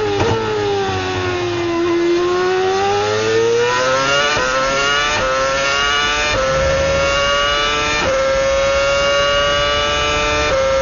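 Onboard sound of a 2012 Mercedes Formula 1 car's 2.4-litre V8. The engine note sinks through a slow corner, then climbs as the car accelerates hard out of it, dropping briefly at each quick upshift from third gear up to seventh.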